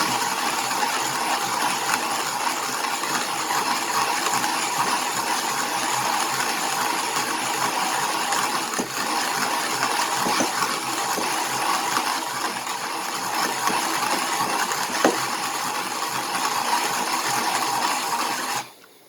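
Hand-cranked burr coffee grinder grinding medium-roast beans at an espresso setting: a steady grinding with scattered small clicks, stopping abruptly near the end. Medium roast is hard to grind this fine, so the grinder takes effort to turn.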